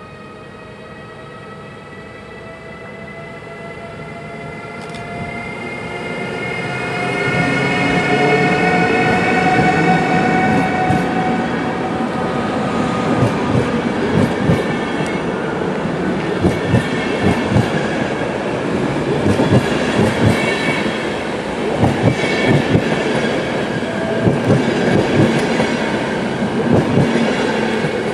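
EU44 Husarz (Siemens EuroSprinter) electric locomotive pulling a passenger train, its traction motor whine climbing slowly in pitch as it accelerates and comes closer. Then the carriages roll past with a rapid clatter of wheels over the rail joints.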